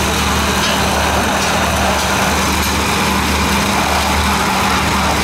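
Countertop blender motor running steadily, blending a milkshake in its jug.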